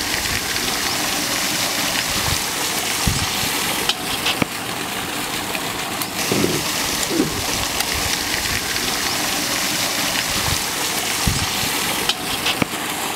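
Chicken masala sizzling steadily in oil in a large iron kadai over a wood fire, with a few sharp knocks of the metal ladle against the pan.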